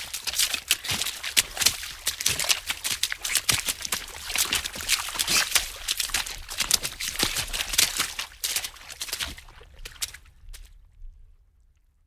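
Water splashing in quick, irregular splashes. The splashes thin out near the end and stop about ten and a half seconds in.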